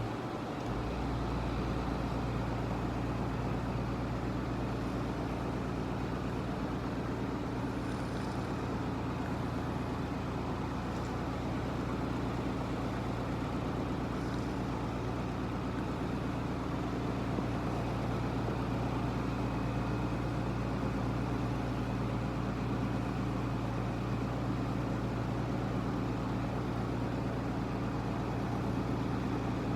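A steady low machine hum with even, unchanging tones, like a running engine or motor; no breath-by-breath rhythm of snoring can be made out.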